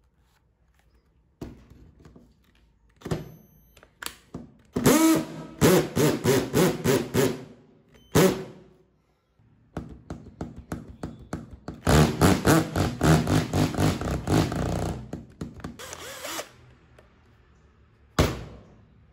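Cordless 21 V drill, fitted with a new trigger switch and battery BMS, running in a series of trigger bursts. The two longest runs last a few seconds each and carry a fast, even clatter of clicks. A short burst comes near the end.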